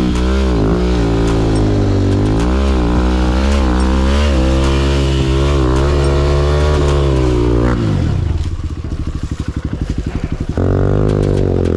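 Single-cylinder four-stroke dirt bike engine revving up and down in bursts under load on a steep dirt climb. About eight seconds in the revs drop to a low, pulsing idle, then it revs up again near the end.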